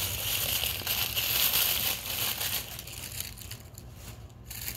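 Toy packaging wrappers crinkling as they are crumpled and pulled open. The crinkling is loud and dense for the first two and a half seconds, then softer and more broken.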